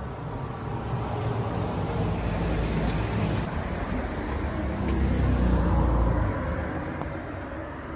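A motor vehicle passing on the road, its engine and tyre noise building to a peak about five to six seconds in and then fading.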